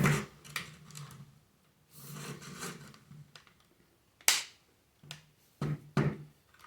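Plastic parts of a Dyson cordless vacuum being pried and worked loose by hand: a few sharp clicks and knocks, the loudest at the start and about four seconds in, with rubbing and scraping of plastic between them.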